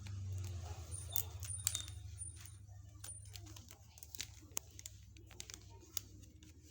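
Plastic wafer wrappers crinkling as they are handled and opened: an irregular string of sharp crackles and clicks, with a low hum in the first few seconds.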